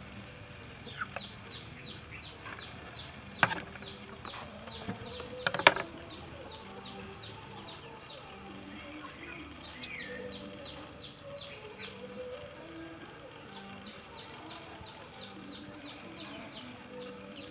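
Chickens clucking and peeping in the background: a high, falling peep repeated about three times a second, with lower clucks underneath. Two sharp knocks stand out, about three and a half and five and a half seconds in.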